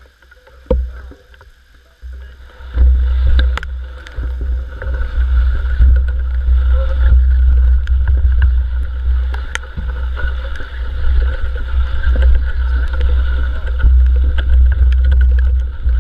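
Muffled riding noise of a mountain bike on a wet dirt trail, picked up by a GoPro Hero3 in its waterproof housing: a low rumble with scattered clicks and rattles. It starts about three seconds in, after a quieter opening with a single knock.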